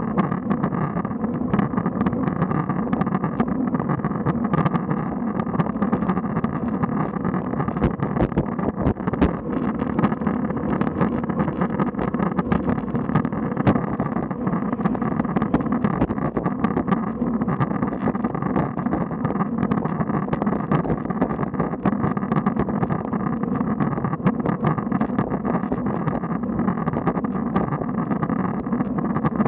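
Steady wind and road rumble picked up by a camera mounted on a road bike riding uphill in a group, with frequent small clicks and knocks from the ride.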